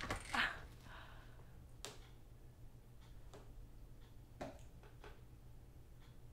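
Quiet room tone with a steady low hum, a brief voice sound just after the start, and a few faint, irregular clicks and knocks.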